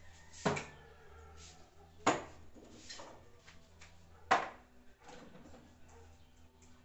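Small objects picked up and set down on a wooden dresser top, one by one: three sharp knocks about a second and a half apart, with a few lighter clicks between.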